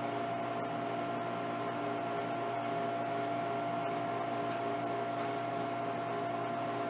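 Soda vending machine's refrigeration compressor running, a steady hum with a high whine on top. The machine is cooling a warm cabinet down from 91°F.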